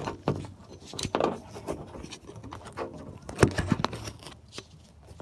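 Irregular light clicks, taps and scrapes of metal parts being handled as a steering cable is worked into an outboard motor's steering tube.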